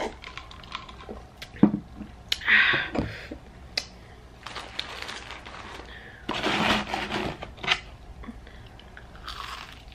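Table-side handling noises while eating: a few sharp clicks and knocks of a glass and a metal fork, and several short rustling, breathy bursts as onion rings are taken from a cardboard box.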